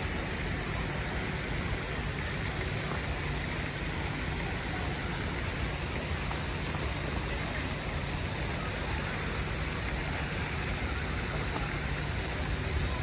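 Steady, even rushing hiss of a busy urban square, with no distinct events standing out.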